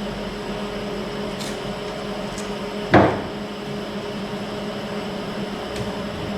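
A single sharp clunk, like something knocking against or being set down on metal, about three seconds in. A few faint light ticks come before and after it, over a steady low hum from the shop.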